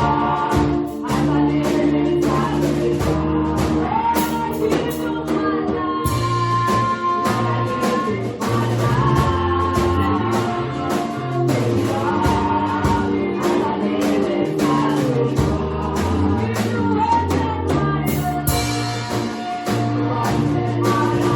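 A church choir singing a gospel song with a live band, over a steady beat and a moving bass line.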